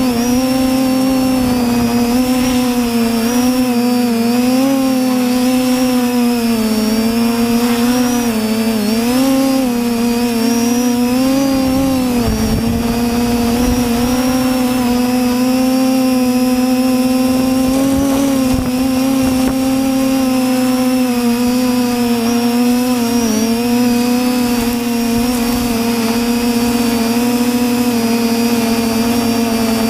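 TBS Discovery quadcopter's electric motors and propellers buzzing, heard from the camera on board. The pitch wavers up and down with the throttle for about the first twelve seconds, with a brief rush of low noise, then holds steadier.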